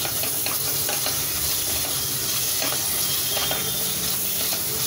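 Onion, ginger-garlic and spice masala with fresh coriander and mint leaves sizzling steadily in oil in a metal pot, while a spatula stirs it with repeated short scrapes against the pot.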